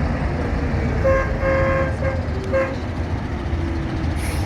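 A truck horn honks four times in short blasts on one pitch, the second blast the longest, over the steady low rumble of passing heavy vehicles.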